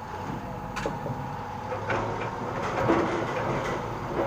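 Heavy machinery running steadily, with a few sharp metal clanks and knocks over it.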